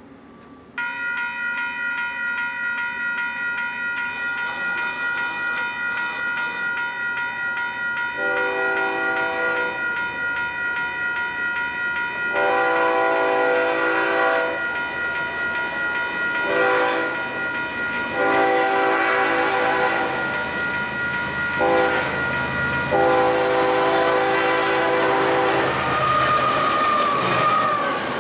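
A crossing warning bell starts ringing about a second in and rings steadily. Over it, the horn of a BNSF GE ES44C4 locomotive leading the Amtrak Coast Starlight sounds a series of long and short blasts, the last one held about three seconds. Near the end the locomotive passes close, and the rumble of its diesel engine and wheels rises.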